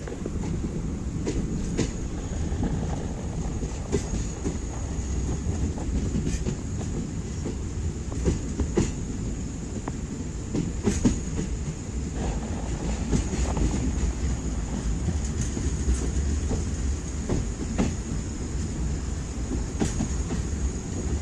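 Passenger train coaches running at speed, heard from an open coach door: a steady rumble of steel wheels on the rails, broken by irregular sharp clacks from the track every second or two as the train crosses a river bridge.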